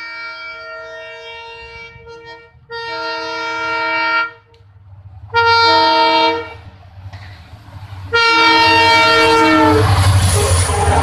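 WDP-4D diesel locomotive's air horn sounding in repeated blasts, each a chord of several tones: one already sounding that stops about two seconds in, then three more, each louder than the last as the train approaches. Near the end the locomotive passes at speed with a loud rumble of engine and wheels.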